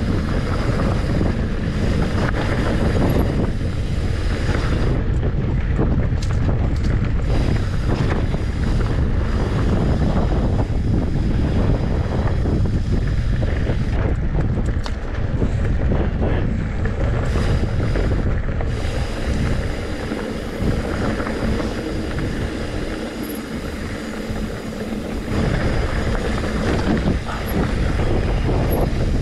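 Wind buffeting the microphone of a camera riding along on a mountain bike, over a continuous rumble with many short knocks and rattles from the bike running over rough singletrack. The wind rumble eases for a few seconds in the last third.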